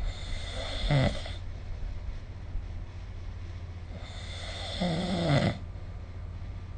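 A sleeping person snoring: two snores about four seconds apart, the second longer and louder, over a steady low hum.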